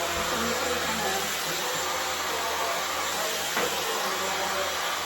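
Dyson hair dryer blowing steadily through its diffuser attachment, an even rushing of air with a faint click about three and a half seconds in.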